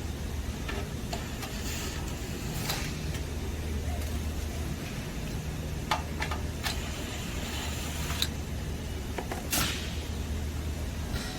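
Scattered sharp metal clicks and light knocks, about nine in all, from screws being taken out of a heater unit's sheet-metal back panel and handled, over a steady low hum.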